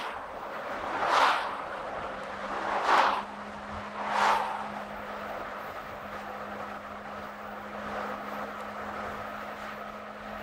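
Road noise from a moving car. Oncoming vehicles whoosh past three times in the first few seconds, over a steady low hum.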